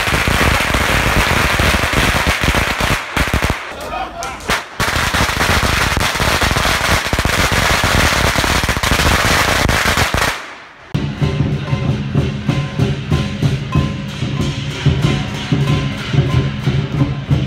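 Strings of firecrackers going off in rapid, crackling volleys for about ten seconds. Then, after a sudden cut, dragon dance percussion music of drums and other beaten instruments in a steady rhythm.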